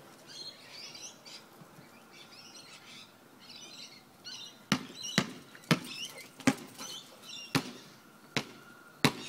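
Birds chirping, then from about halfway a basketball bouncing on the hard court surface: seven sharp bounces at uneven intervals.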